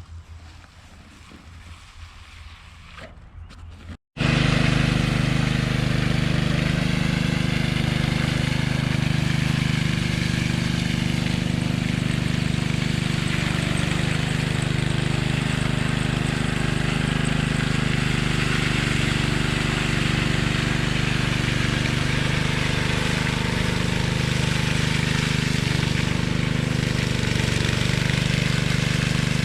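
Engine running steadily at a constant speed. It cuts in abruptly about four seconds in, after a quieter low hum.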